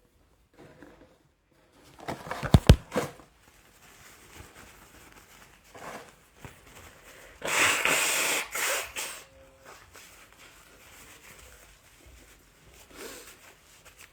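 A man sneezing: a short sneeze with sharp bursts about two seconds in, then a louder, breathy sneeze about seven and a half seconds in that lasts about a second and a half.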